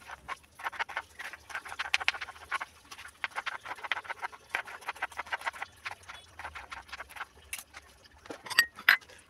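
Kitchen knife chopping green capsicum on a plastic cutting board: quick, steady taps of the blade striking the board. They stop near the end, where a few louder, sharper knocks follow.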